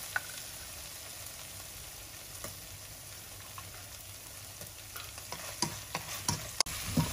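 Onion, garlic and lemongrass sizzling quietly in oil in a non-stick frying pan over low heat. From about five seconds in, wooden chopsticks click and knock against the pan as the mix is stirred.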